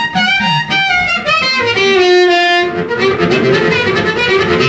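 Harmonica played through a JT-30 bullet microphone into an amp. It gives a thick, distorted reedy tone with bent notes, and one wavering note is held about two seconds in.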